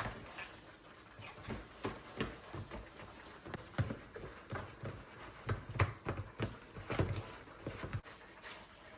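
A kitchen utensil knocking and scraping in a pot as mayonnaise and butter are mixed into mashed potatoes. The knocks are soft and irregular, about one or two a second, and come most often about halfway through.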